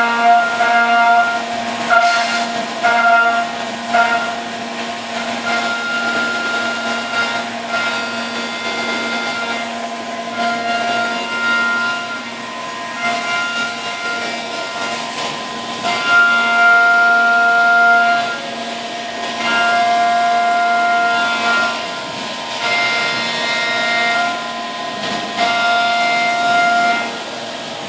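A Brother TC-S2Dn-O CNC mill's spindle drives a three-flute carbide endmill through 6061 aluminium at high RPM. It makes a steady high-pitched cutting whine over the hiss of flood coolant spray. The whine grows louder and softer every few seconds as the tool moves into and out of the cut.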